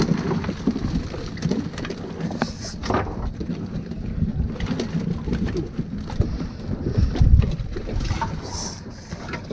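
Noise aboard a small fishing boat: an uneven low rumble of wind and water, with a few knocks and a heavier thump about seven seconds in.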